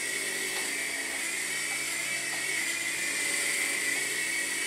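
Three-channel micro RC helicopter in flight: the steady high-pitched whine of its small electric motors and the whir of its coaxial rotors, getting a little louder about three seconds in as it comes close.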